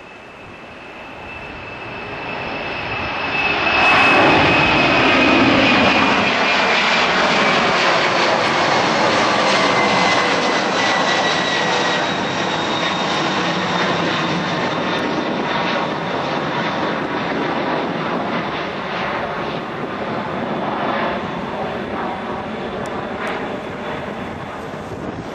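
Boeing 767-300ER's twin turbofan engines at takeoff power as the jet climbs out and passes overhead. The engine noise swells sharply over the first few seconds, with a high fan whine that falls in pitch as it goes by, then slowly fades as it climbs away.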